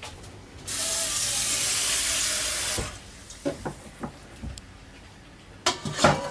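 Galley tap water running into the sink for about two seconds, then a few light clicks and, near the end, a burst of sharp knocks as a stainless bowl and a mug are handled in the sink.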